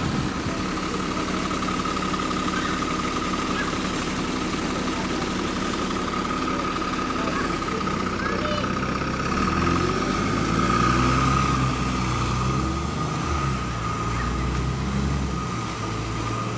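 Alexander Dennis Enviro400 double-decker bus on a Trident chassis with its diesel engine running steadily, with a steady high whine over it. About halfway through the bus pulls away, its low engine note growing louder and stepping up and down as it accelerates through the gears.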